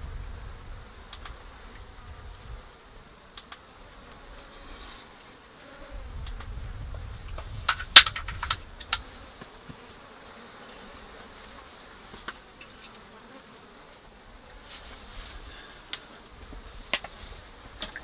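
Flies buzzing. A quick cluster of sharp clicks about eight seconds in is the loudest sound, with a few lighter clicks later, one near the end. A low rumble comes and goes.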